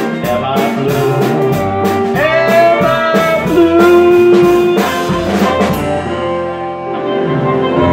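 Country band playing the closing instrumental bars of the song on acoustic and electric guitar with a drum kit; the drums stop about six seconds in and the final chord rings out.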